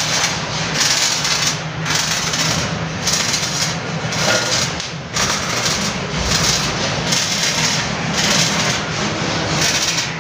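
Electric arc welding on a steel frame: the arc crackles and hisses steadily, dipping briefly about once a second, over a low steady hum.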